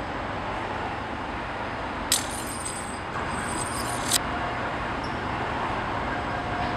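Steady city street traffic noise. About two seconds in comes a high metallic jingling that lasts about two seconds, starting and ending with a sharp clink.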